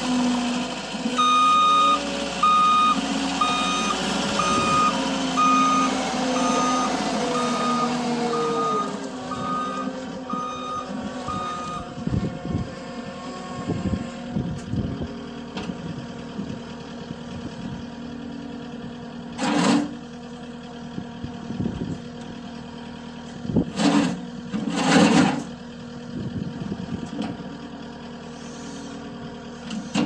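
Cat 279D compact track loader's diesel engine running with its reversing alarm beeping about once a second for the first twelve seconds; the engine drops in pitch near the end of the beeping and then runs on at idle with scattered knocks. Three short loud rushes of noise come through later on.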